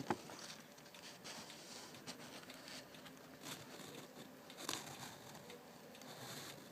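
Faint rustling with scattered soft clicks, one a little louder just after the start. The cricket is not chirping.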